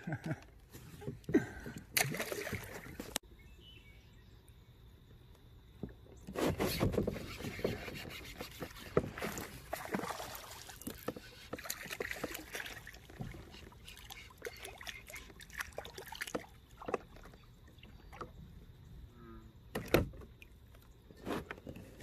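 Water splashing and handling knocks around a fishing kayak, coming in irregular bursts, with a sharp knock about two seconds before the end.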